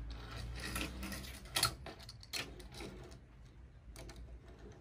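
Light clicks and taps of small plastic toy figures being handled and set down on a tabletop, with the loudest knock about a second and a half in.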